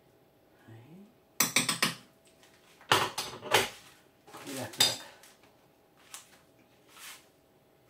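Kitchen handling noises: a quick run of sharp clicks of a spoon and dish about a second and a half in, then two louder clattering, scraping bursts around three and four and a half seconds as dry lasagna sheets are handled from their cardboard box.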